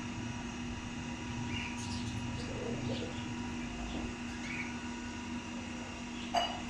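Small birds chirping now and then over a steady hum, with a light knock near the end.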